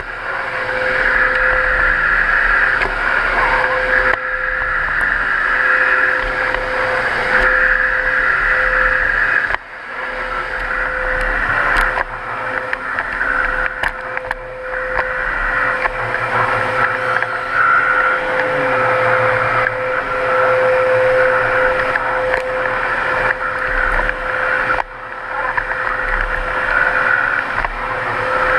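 Miele Capricorn canister vacuum cleaner running steadily with a high whine, its sound shifting as the nozzle is worked over the floor. The suction noise dips briefly twice, about ten seconds in and again a few seconds before the end.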